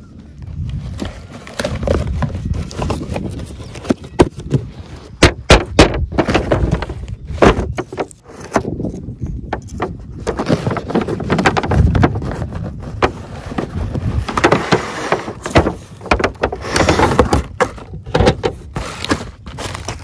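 Plastic wrapping crinkling and cardboard toy boxes being handled, with a cluster of sharp clicks and knocks about five seconds in.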